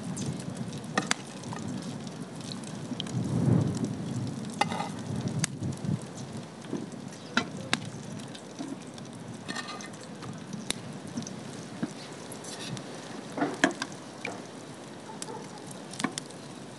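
Peeled eggplant pieces frying in oil in a pan over a wood fire: a steady sizzle broken by scattered sharp pops and crackles.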